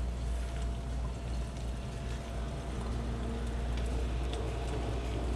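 Chicken, onions and peppers sizzling in pineapple juice in an enameled cast-iron pot while being stirred, with a few light clicks and scrapes of the utensil against the pot, over a steady low hum.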